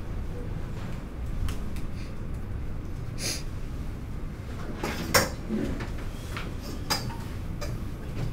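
Room noise: a low, steady rumble with scattered small clicks and knocks, the sharpest about five seconds in.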